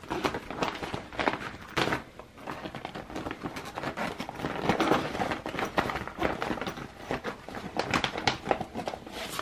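Clear vinyl-mesh zippered project bags crinkling and rustling as they are flipped through by hand, an irregular run of short crackly rustles.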